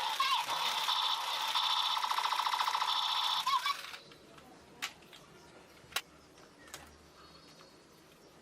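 Electronic toy gun sound effect: a fast pulsing buzz with a few short swooping tones, which stops about four seconds in. After it, a few sharp plastic clicks.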